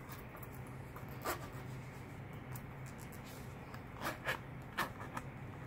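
Zipper on a shoe's zip-off strap being pulled open in a few short scratchy strokes, over a low steady hum.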